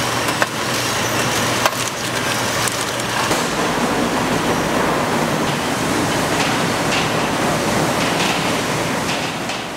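Factory machinery noise: a dense, steady clattering din with a few sharp clicks in the first couple of seconds.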